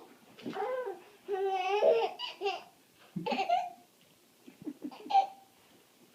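A young child laughing in several high-pitched bursts with short pauses between them, loudest about two seconds in and trailing off to fainter sounds near the end.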